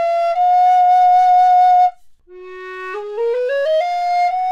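Two alto recorders at the same sounding pitch, one after the other. A wooden F alto pitched at 466 Hz, made by Tom de Vries, holds the top note of a rising scale until it stops about two seconds in. After a short gap, a black resin Ganassi G alto by Vincent Bernolin, using its 415 Hz joint, plays the same rising scale note by note and settles on the same long held top note.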